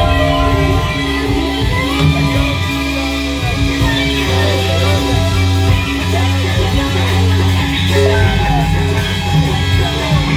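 Rock band playing live: electric guitars over bass, with sustained and bending guitar lines.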